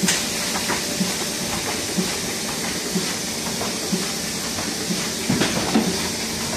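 Roland Miehle sheet-fed offset press running while it feeds sheets: a steady mechanical clatter and hiss with a regular beat about once a second. There is a sharp click right at the start.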